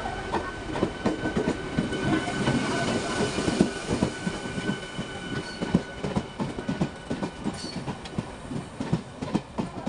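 A new RCF-built electric multiple unit (EMU) train passing close by, its wheels clicking rapidly and unevenly over the rail joints, with a thin steady high tone running under the clatter.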